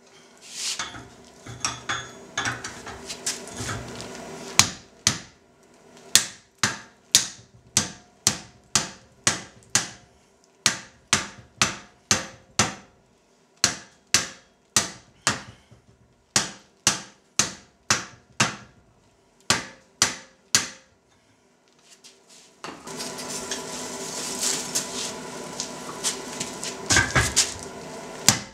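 Hand hammer striking a red-hot steel eye down over a cone mandrel in the anvil's hardy hole, about two blows a second, to open the eye up. The blows stop briefly near three-quarters of the way through, and a steady rushing noise follows for a few seconds near the end.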